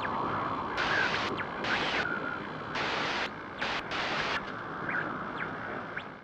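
GoPro logo intro sound effect: a fading hiss broken by several short bursts of static-like digital glitch noise and a few quick whooshing pitch sweeps, cutting off suddenly at the end.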